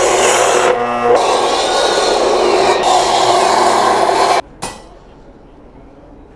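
A saw cutting through wooden lumber, a dense steady rasping that breaks briefly just under a second in and stops abruptly about four seconds in, followed by a single sharp knock.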